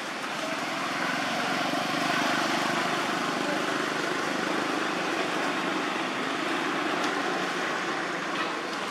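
A motor vehicle passing: a steady rushing drone that swells about two seconds in and eases off near the end.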